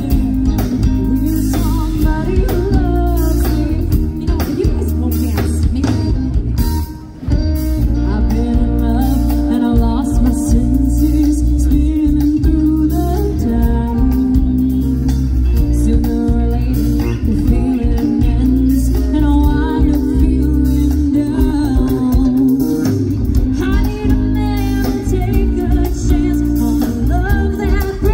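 Live rock band playing through stage speakers: singing over electric guitar, bass guitar and drum kit, with a brief break about seven seconds in.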